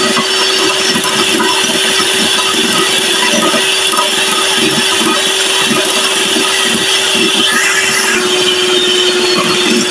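Electric hand mixer running at speed, its beaters whipping cream in a bowl. The motor makes a steady hum that dips slightly in pitch about eight seconds in.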